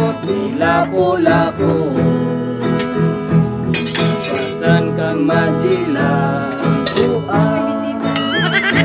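A man singing a Filipino song in Cebuano/Tagalog to his own strummed acoustic guitar.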